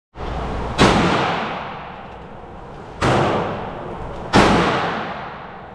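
Three pistol shots about a second and a half apart, each followed by a long echoing decay.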